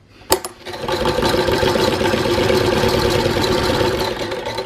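Singer 128 vibrating-shuttle sewing machine, hand-cranked, stitching steadily through eight layers of denim. A sharp click comes just before it gets going, and the running eases off near the end.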